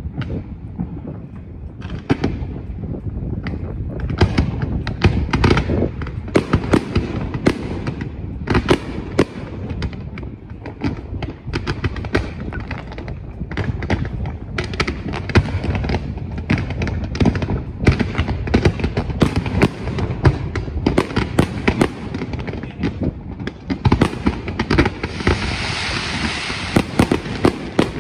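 Fireworks display: a rapid, continuous string of bangs and crackling bursts over a low rumble, with a steady hiss joining in near the end.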